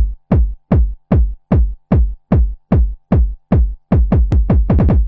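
Electronic dance track intro: a lone kick drum thumping about two and a half times a second, each hit dropping in pitch. Near the end the kicks speed up into a faster roll.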